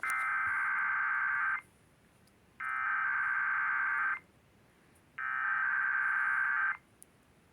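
Emergency Alert System SAME header: three identical bursts of buzzy, warbling digital data tones, each about a second and a half long with about a second of quiet between them. These bursts are the encoded start of an EAS test alert.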